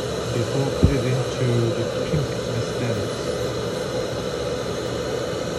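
Steady mechanical drone with faint background music over it, and one low thump about a second in.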